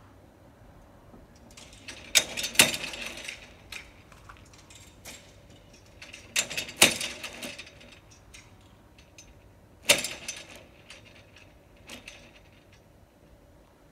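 Sharp metallic clicks and clatters, in pairs about half a second apart, coming roughly every four seconds over a quiet background.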